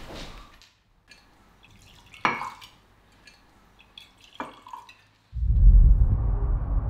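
Whisky poured from a bottle into cut-glass tumblers, with two sharp glass clinks, the louder about two seconds in. A sudden deep low rumble comes in near the end.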